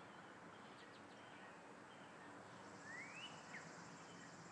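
Near silence: faint outdoor ambience with distant birds chirping, including one rising whistled call about three seconds in.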